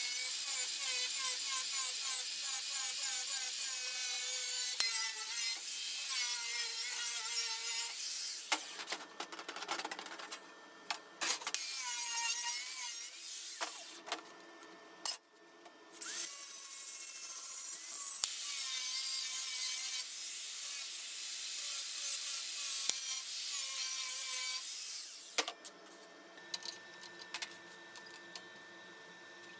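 Bosch angle grinder with a thin cut-off disc cutting through steel sheet, a shrill whine that wavers in pitch under load, in three long runs. Between and after the cuts there are short metallic knocks and clinks as the sheet is handled.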